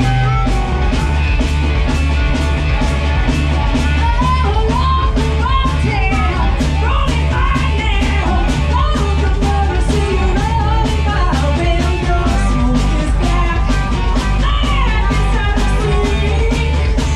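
Live rock band playing: drum kit keeping a steady beat under bass and electric guitars, with a lead line of bending notes from about four seconds in.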